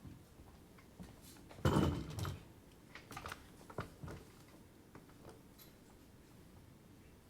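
Scattered light clicks and knocks, with a louder rustling thump about two seconds in.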